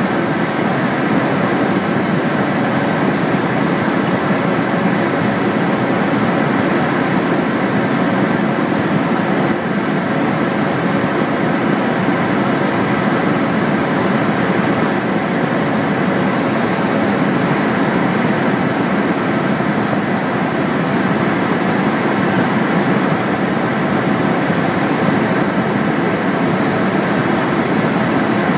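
Steady drone of an aircraft in flight heard from inside the cockpit: engine and airflow noise at a constant level, with no change in power.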